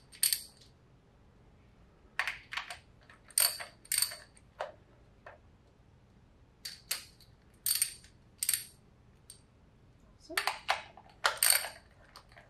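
Ratchet and 10 mm socket clicking and clinking on metal while the acorn bolts on a Honda B18C1's plug-wire cover are undone. The sound is short clusters of sharp, ringing metallic clicks, two or three at a time, every second or two.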